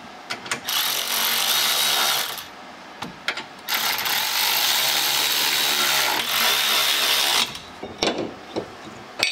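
Cordless electric ratchet running in two long bursts, spinning brake caliper adapter bracket bolts into the hub knuckle, with a few short metallic knocks between and near the end.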